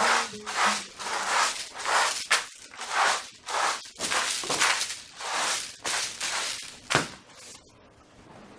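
Rhythmic scratchy brushing strokes, about two a second, made by hand close to the floor and bedding. They stop about seven seconds in after one short, sharper stroke.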